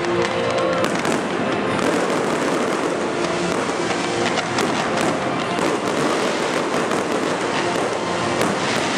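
Fireworks display: ground fountains and aerial shells going off together, a dense, continuous crackle full of sharp pops.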